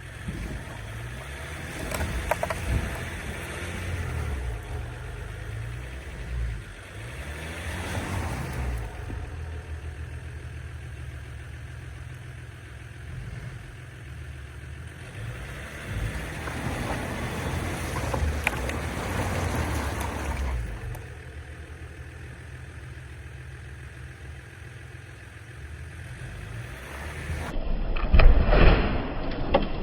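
3.0-litre V6 EcoDiesel engine running in four-wheel-drive low, rising in several surges as it is given throttle to climb out while stuck, with a loud rush near the end.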